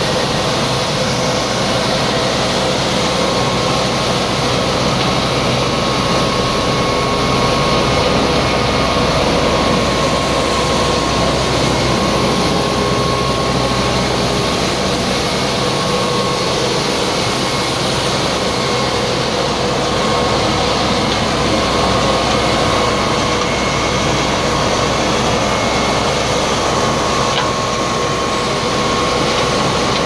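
Areksan 6 m³ truck-mounted vacuum street sweeper running: a loud, steady drone of its suction fan and engine, with the side gutter brush turning on wet pavement.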